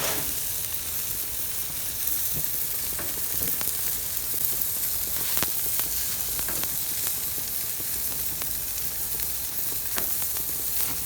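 Thick beef burger patties sizzling and crackling on an open grill over high heat, fat and juices popping with scattered sharp crackles.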